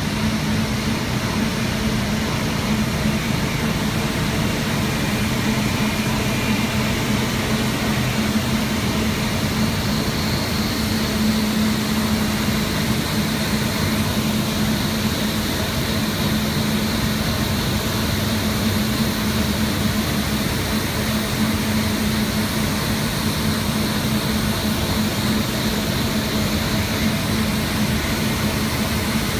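Paper machine running in production at about 810 m/min, making 80 gsm paper: a steady, loud mechanical roar with a constant low hum. A faint high whine joins about ten seconds in.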